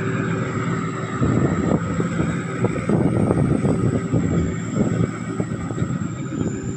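Sakpattana SS-300 combine harvester's Hino J08C diesel engine running steadily under load, with a thin, high, steady turbocharger whine over it. From about a second in, an irregular clattering rattle joins the engine.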